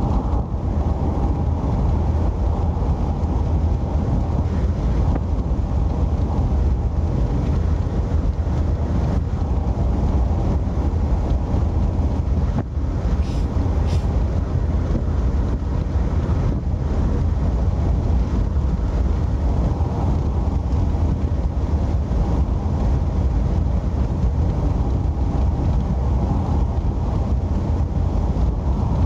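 Steady low rumble of a car on the move: road, engine and wind noise heard from inside the car.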